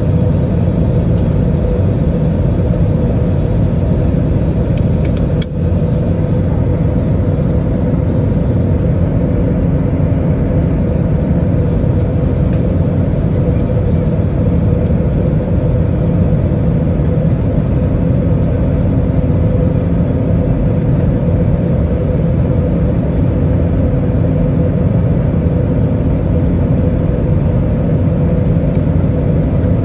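Steady cabin noise of an Airbus A320 on approach, heard at a window seat beside the engine: a loud low rumble of engine and airflow with a constant hum running through it.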